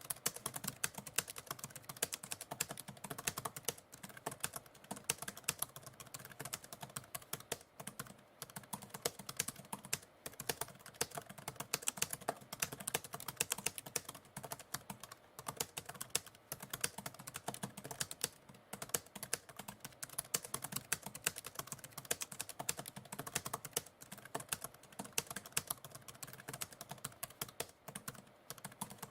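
Typewriter keys being typed in a fast, irregular run of clacking strikes, with a few short pauses.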